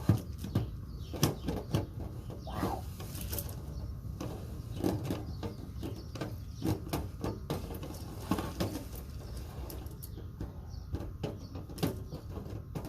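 Dryer vent cleaning brush on its long screw-together rod being worked in and out of the vent duct: irregular clicks, knocks and scraping as the rod sections and brush rub and rattle against the duct.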